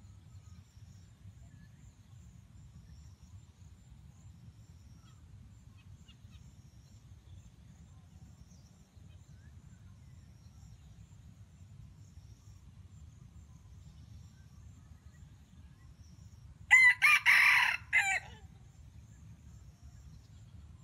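A rooster crows once near the end, a single call of about a second and a half, over faint steady low background noise.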